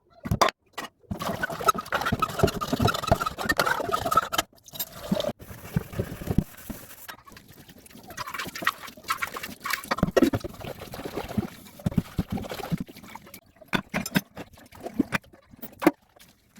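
Water running and splashing in a kitchen, with scattered knocks and clatter of pots and utensils being handled.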